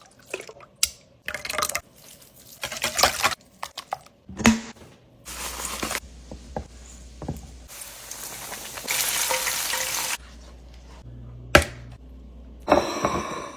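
Close-up eating sounds: a utensil clicking against a dish and crunchy, wet chewing and stirring noises in short cut-together stretches, with sharp clicks about half a second and eleven and a half seconds in.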